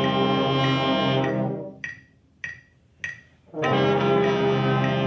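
Beginning brass ensemble of trumpets, French horns and trombones playing a warm-up in long tones: a held chord cuts off about a second in, and after a short gap with a few evenly spaced sharp ticks, the group comes back in on another long held chord.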